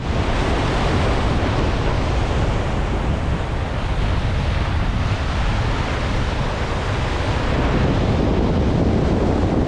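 Surf breaking and washing over the rocks of a rock jetty, with wind buffeting the microphone in a steady low rumble.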